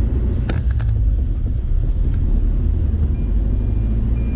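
Steady low rumble of a car driving, heard from inside the cabin, with a quick run of light clicks about half a second in and a single click a little after 2 seconds.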